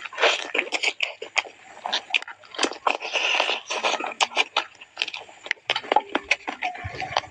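Close-up eating sounds of grilled chicken being bitten and chewed: a quick, irregular run of sharp crunches and mouth clicks with short wet smacks between them.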